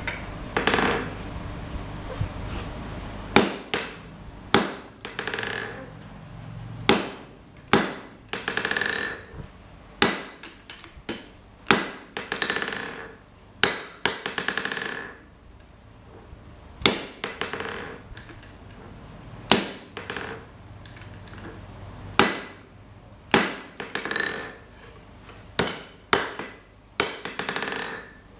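Hand hammer striking a red-hot steel rebar bar on an anvil while forging it to shape. Single blows come about every one to two seconds, some in quick pairs, and many are followed by a short metallic ring.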